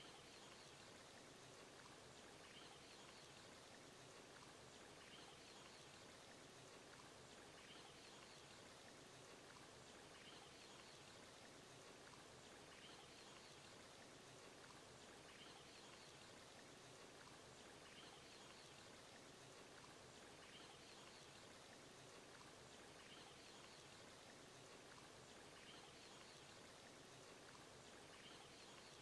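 Near silence: a faint steady hiss, with a faint short high chirp recurring about every two and a half seconds.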